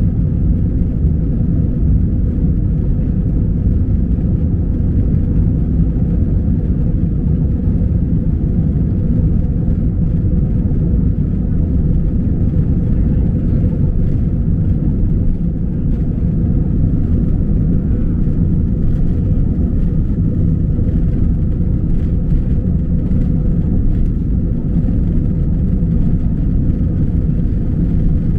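Jet airliner cabin noise during takeoff: the engines at takeoff thrust and the roll down the runway make a loud, steady low rumble with a faint constant hum.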